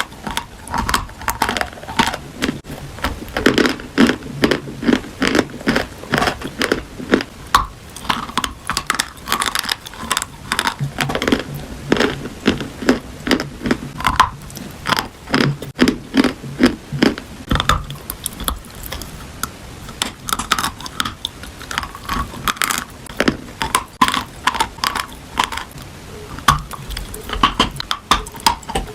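Someone biting and chewing crunchy food: a steady run of sharp, irregular crunches, a few a second.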